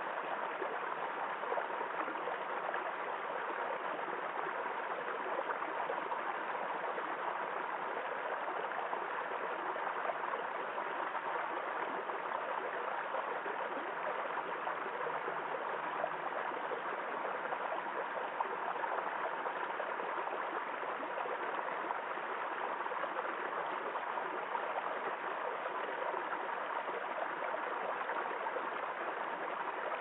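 Small rocky forest stream running over stones and little cascades: a steady rush of water that does not change.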